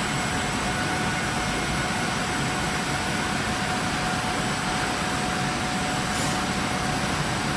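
Production line for flat micro spray irrigation tube running: a steady mechanical hum and rush with a constant faint high whine, the machinery at an even speed throughout.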